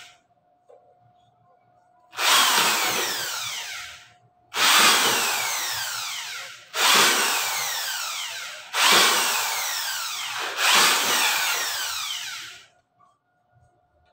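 Corded electric drill with a 1/8-inch metal bit, run in five short bursts of about two seconds each after a quiet first two seconds. Its whine falls in pitch through each burst as it bores through blind rivet heads, stacking them on the bit.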